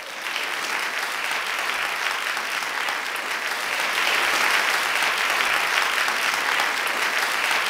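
Crowd applause that starts suddenly and swells a little louder about halfway through.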